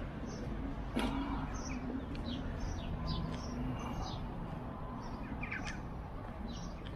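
Small birds chirping in short repeated calls over a steady hum of street traffic, with one sharp knock about a second in.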